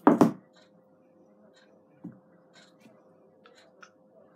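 A small plastic tub of slime mixture handled at the table: two sharp plastic knocks right at the start, a softer knock about two seconds in, and light handling sounds between, over a faint steady hum.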